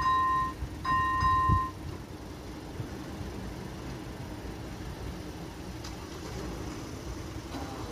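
Railway level-crossing warning signal sounding its repeated electronic tone twice more, then falling silent about two seconds in as the barriers lift: the crossing is clearing. After that only a low steady background rumble remains.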